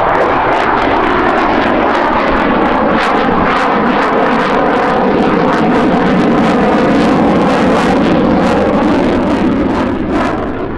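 Loud, steady jet noise from an F-16 Fighting Falcon's single Pratt & Whitney F100 turbofan engine as the fighter flies its display overhead, easing off slightly near the end.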